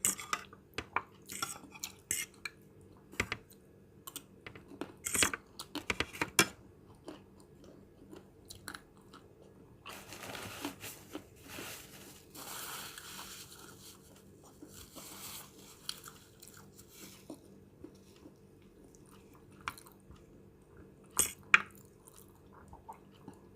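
A person eating a plate of fried noodles up close: chewing and crunching, broken by sharp clicks of a utensil on the dish, thickest in the first several seconds and again about twenty-one seconds in.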